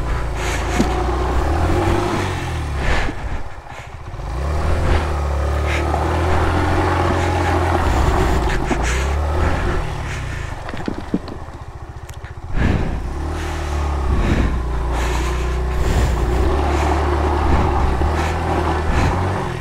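Suzuki Van Van 125's single-cylinder four-stroke engine revving under heavy load on a steep, loose climb, in two long surges that sag briefly about four seconds in and again around ten to twelve seconds. The bike is labouring and losing momentum on the slope.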